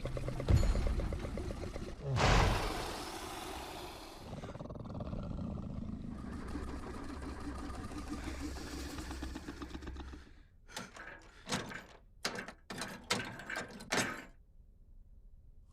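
Demon creature sound effects: two heavy thuds, then a long, low growling roar, followed by a rapid string of short growling bursts.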